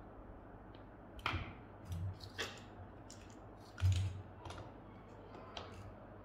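Small hand tools being handled at a repair bench: a scatter of light clicks and scrapes, with a couple of dull knocks, the loudest about four seconds in.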